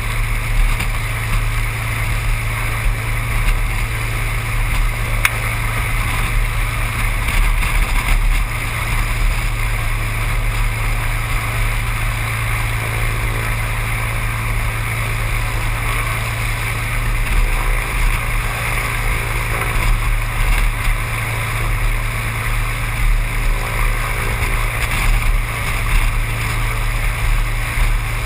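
Seaplane's propeller engine droning steadily at a constant pitch.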